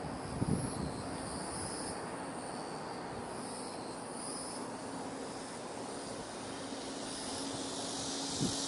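Outdoor ambience with a faint, steady distant engine drone that slowly grows louder, over a soft hiss, with a few low bumps near the start.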